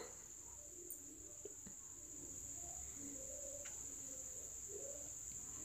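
Faint, steady, high-pitched trill of a cricket.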